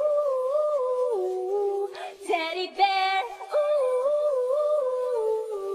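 Female singers' live vocals with the backing track removed, holding a wordless, gently wavering melody that steps between notes. About two seconds in comes a shorter, brighter sung phrase.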